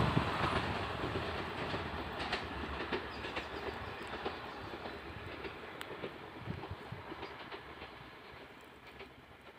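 Wheels of the Amravati–Tirupati SF Express clattering over the rails as the last coach moves away, fading steadily, with scattered clacks.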